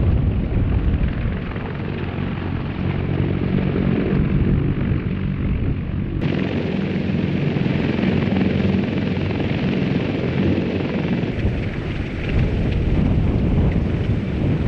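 Sikorsky CH-53E Super Stallion heavy-lift helicopter running close by: a loud, steady rotor and turbine din with a low hum and heavy rumble. The sound shifts abruptly about six and eleven seconds in.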